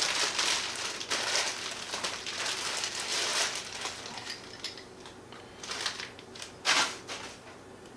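Plastic packaging crinkling and rustling as a MIG welding gun and its coiled cable are unwrapped by hand. It is busiest in the first few seconds, then settles into a couple of short rustles near the end.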